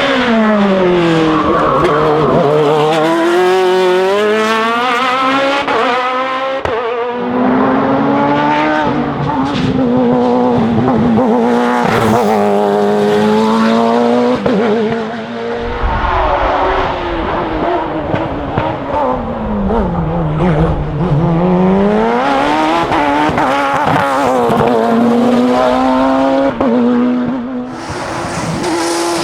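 Hill-climb race car's high-revving engine driving hard through the gears. Pitch climbs with each gear and drops sharply as the car brakes and downshifts, once about a second in and again about twenty seconds in.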